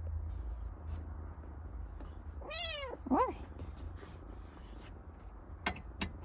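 A cat meowing: one drawn-out meow that rises and falls about two and a half seconds in, followed at once by a shorter second call. A couple of sharp clicks come near the end.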